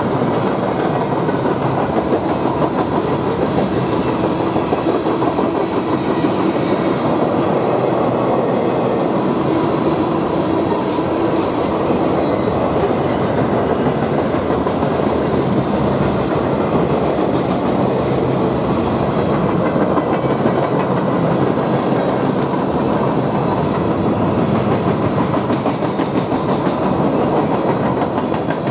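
A freight train's tank cars and boxcars rolling past, steel wheels on the rails in a steady rumble.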